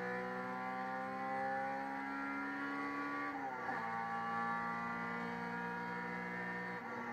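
In-car sound of a Honda Civic EG race car's four-cylinder engine pulling hard under acceleration, its pitch climbing steadily, then dropping sharply at an upshift about halfway through and climbing again, with another shift near the end.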